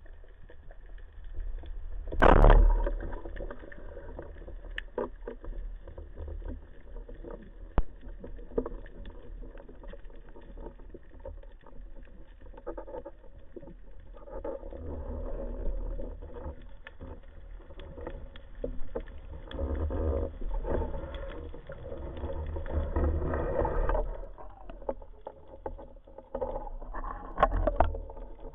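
Underwater sound through a camera housing on a band-powered speargun. The speargun fires with a single loud thump about two seconds in. Then comes a steady low water rumble with many faint crackling clicks and swelling, swishing water movement as the diver works and swims.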